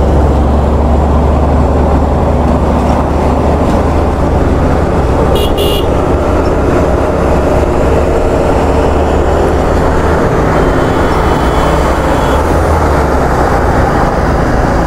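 Heavy wind rumble on the microphone over the running single-cylinder engine of a Bajaj Platina 110 motorcycle being ridden. A vehicle horn gives two short toots about five and a half seconds in.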